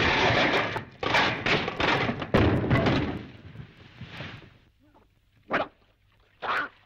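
A man falling into the water beside a paddle steamer's paddle wheel: a loud splash of crashing water with a few knocks, the spray fading out after about four and a half seconds, then two short splashes.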